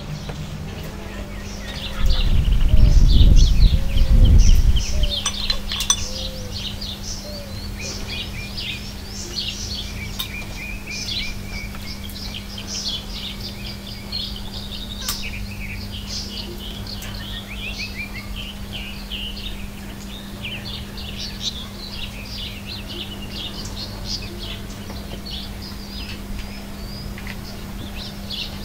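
Small songbirds chirping and singing, many short calls all through. About two seconds in, a loud low rumble lasts a couple of seconds and covers the birds.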